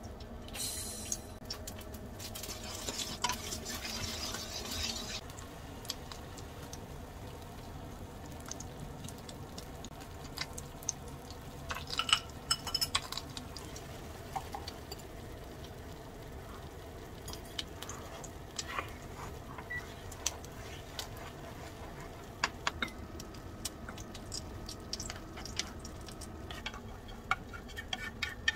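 Cooking with a small nonstick frying pan: a hiss for a few seconds about two seconds in, then scattered taps, clinks and scraping of utensils against the pan and bowls, with the sharpest clinks about twelve seconds in.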